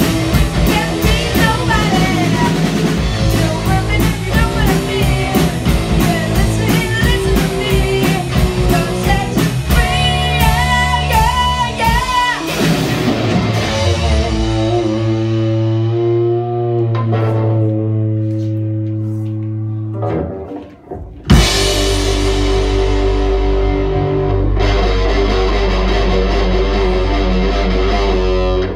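Live rock band of drum kit, electric guitar and electric bass playing a fast song. About 12 seconds in the drumming stops and a chord is left ringing and fading; about 21 seconds in a loud sudden hit starts a held, loud chord.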